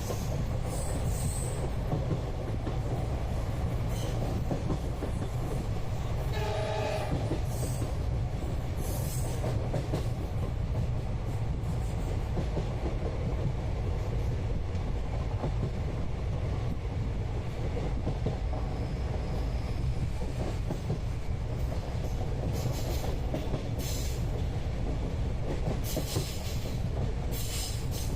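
Steady rumble of a moving Indian passenger train heard from inside the carriage, with a brief train horn sounding about six and a half seconds in.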